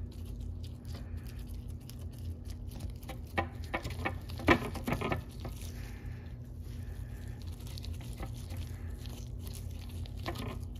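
Gloved fingers working grease around a bicycle bottom bracket bearing cup: soft crackling and rubbing handling noises, bunched together about four to five seconds in, over a steady low hum.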